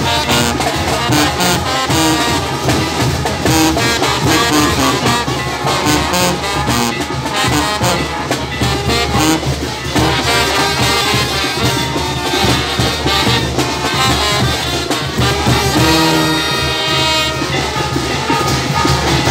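Brass band music playing continuously, trumpets and trombones over a steady beat.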